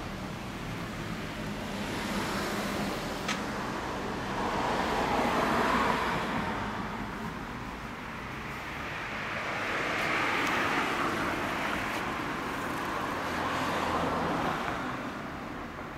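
Road traffic: cars passing one after another, each swelling and fading, about three passes a few seconds apart. A short click about three seconds in.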